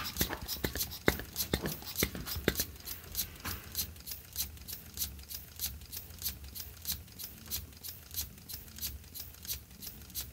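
Lego pneumatic air engine running on compressed air: a steady rapid train of short air puffs and clicks, about four a second, from its cylinder and valve working as the flywheel turns.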